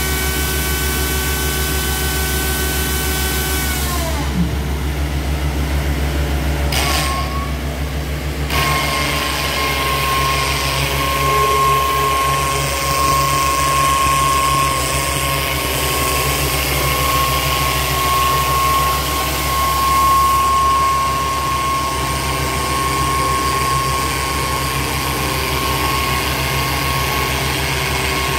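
Engines of a crawler-mounted drilling rig and its portable air compressor running steadily with a deep hum. A set of high whines drops away about four seconds in, and a single steady whine sets in about eight seconds in.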